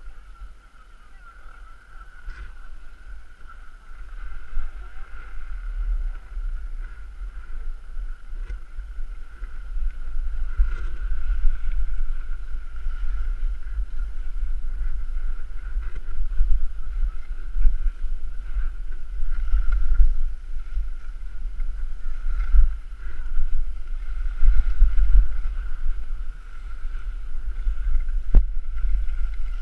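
Wind buffeting the microphone of a camera moving downhill with skiers: a gusty low rumble that grows louder about ten seconds in. A steady faint high tone runs underneath, and there is one sharp click near the end.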